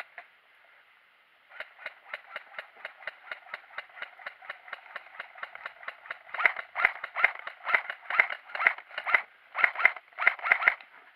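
Quick, regular rattling clicks, about five a second, from the footsteps and jostling gear of airsoft players moving along a concrete path. They start about a second and a half in, grow louder about six seconds in, and break off briefly near the end.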